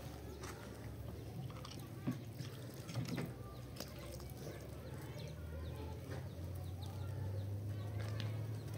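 Faint bird chirping with a few light knocks over a low steady hum.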